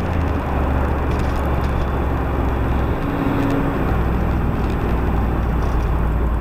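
A car driving at speed, heard from inside the cabin: a steady low engine and road-noise drone. Its pitch drops slightly about halfway through.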